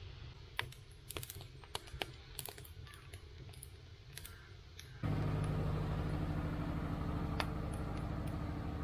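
Oak firewood crackling and snapping with sharp irregular pops in a clay wood-fired stove. About five seconds in, a louder, steady low hum starts abruptly and covers the crackle.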